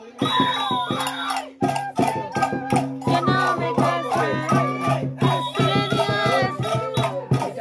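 Andean carnival folk music: an even, quick drum-and-rattle beat under a high melody, with a steady low hum beneath.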